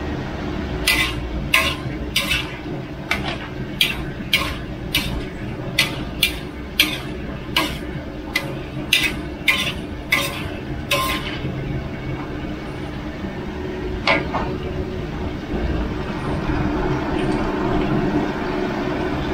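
Metal spatula striking and scraping a large wok while stir-frying a big batch: about seventeen sharp metallic clangs, roughly one every half second, for the first ten seconds or so, then one more a few seconds later, over a steady low rumble.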